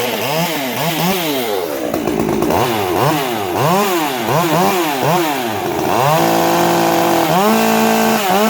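Ported Stihl MS 201T top-handle two-stroke chainsaw with a tuned exhaust, revved in quick repeated throttle blips, its pitch rising and falling a couple of times a second. From about six seconds in it is held at steady high revs, with one brief dip.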